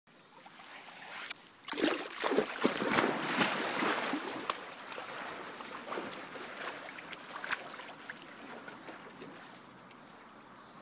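A person plunging into a swimming pool about two seconds in: a splash, then water churning and lapping against the pool edge. It slowly dies down as the swimmer moves underwater.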